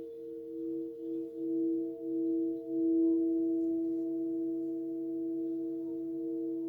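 Himalayan singing bowls rubbed around the rim, several sustained tones sounding together with a slow, pulsing beat. The sound swells in waves and grows louder over the first three seconds, then holds steady.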